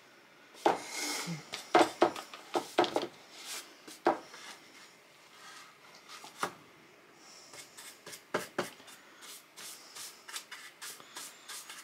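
A bristle paintbrush brushing paint onto a flat wooden cutout, with irregular light taps and knocks as the brush and the board meet the table. The taps cluster in the first few seconds and again toward the end.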